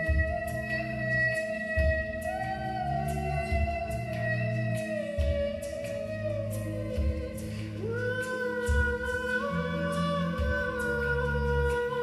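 Background music: slow meditative music with long held tones that slide slowly in pitch over low bass notes changing about once a second.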